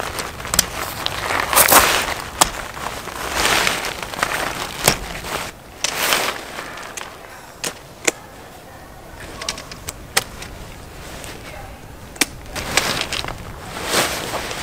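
Dome tent fabric rustling and crinkling as it is handled, in repeated swells, with many sharp clicks and knocks of the tent poles and their clips.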